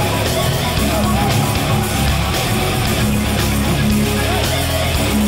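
Rock backing music with electric guitar and a steady beat.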